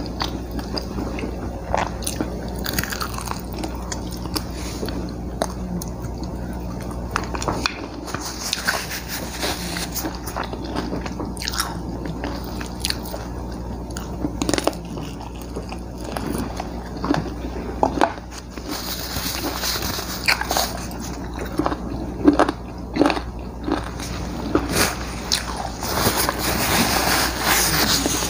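Biting, crunching and chewing of crispy fried chicken: a run of short sharp crunches and wet chewing, busiest in the last ten seconds, over a steady low hum.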